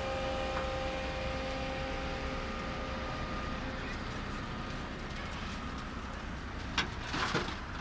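Engine of a heavy road-construction machine running steadily. Near the end there is a sharp knock, then a short noisy burst.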